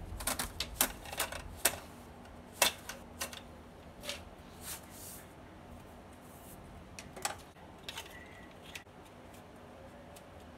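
Handling noise from wiring and plastic parts worked by hand: a quick run of sharp clicks and taps in the first few seconds, then a few scattered clicks, over a faint steady hum.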